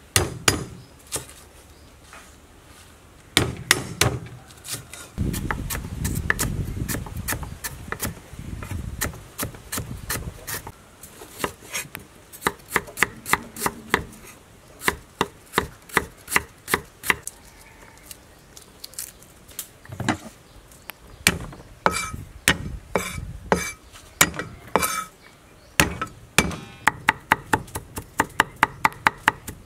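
Cleaver chopping on a wooden cutting board: runs of sharp knocks, several a second, through lemongrass and a root, then a fast run near the end as garlic is minced.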